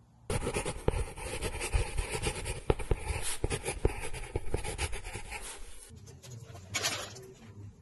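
Hand-cranked pencil sharpener grinding a pencil: a dense run of rapid scratchy clicks that starts abruptly, then a pencil scratching along a wooden board.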